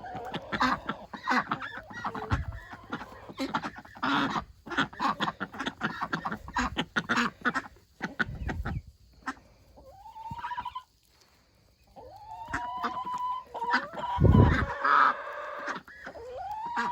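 Chickens clucking busily, with many short sharp sounds. After a brief lull, a few longer drawn-out calls follow in the second half.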